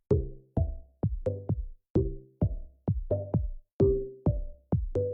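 Electronic background music with a steady drum-machine beat, about two beats a second.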